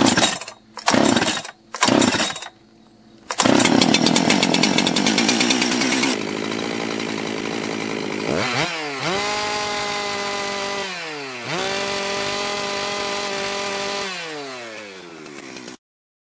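Freshly rebuilt two-stroke chainsaw on a break-in heat cycle, pull-started: a few rope pulls, then it catches about three seconds in and runs loud before settling to idle around 3,200 rpm. It is revved up twice and allowed to fall back to idle, then the sound cuts off suddenly near the end.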